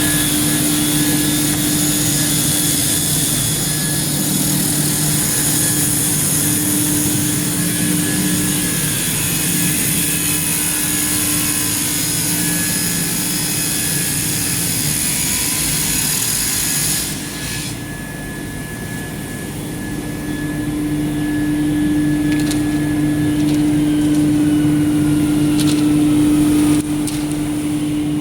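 Woodworking sawing machine running with a steady electric-motor hum and the high hiss of blades cutting wood. The hiss cuts off about two-thirds of the way through, the sound drops briefly, then builds back, with a few sharp clicks near the end.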